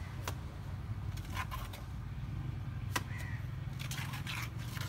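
A mason's trowel throwing and scraping cement plaster onto a brick wall, heard as a handful of sharp slaps and short scrapes over a steady low hum.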